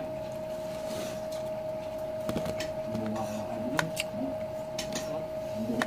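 Eating by hand from a plate: quiet chewing and a few short light clicks of fingers and food against the plate, over a steady high hum.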